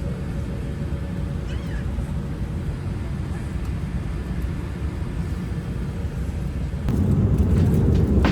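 Steady low rumble of a vehicle running, which gets louder about seven seconds in.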